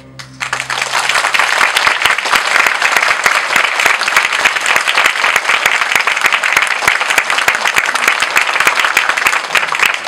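Loud audience applause: dense clapping from a large crowd breaks out about half a second in, just as the tail of the music dies away, and carries on steadily.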